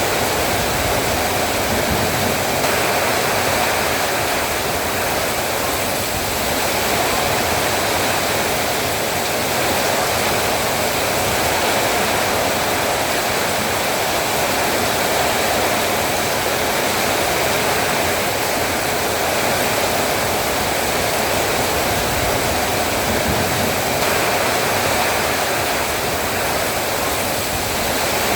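Heavy rain pouring steadily, a dense even hiss with no breaks.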